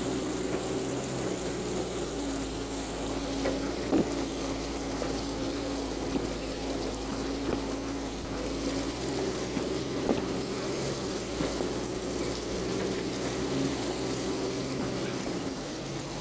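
Off-road vehicle engine running at a steady hum while driving through deep flood water, with a constant hiss of churned water. A couple of sharp knocks about four and ten seconds in.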